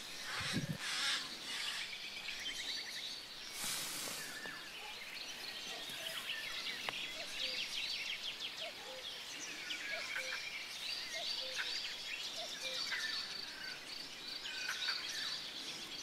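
Mixed wild birdsong: several birds chirping and trilling together, with short low notes repeated now and then through the middle.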